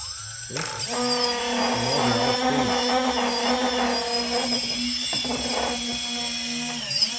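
Quadcopter's brushless motors armed and throttled up from the transmitter, running without propellers fitted: a steady electric motor whine with a thin high tone above it, starting suddenly and holding with small shifts in pitch.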